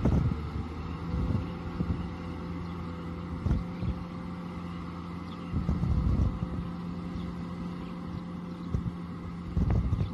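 Kubota M6040SU tractor's diesel engine running steadily under load as it pulls a disc plough through wet mud, with irregular gusts of wind buffeting the microphone.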